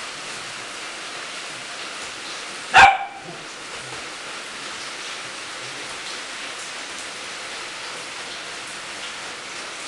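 A small dog barks once, short and sharp, about three seconds in, over a steady background hiss.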